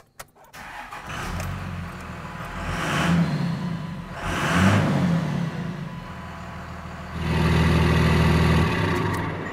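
Cummins turbo diesel of a 2001 Dodge 3500 starting up and running, its starter now engaging with the clutch pedal pressed thanks to a Delrin shim on the clutch safety switch. The engine is revved twice, then held at higher revs for about a second and a half before dropping back near the end.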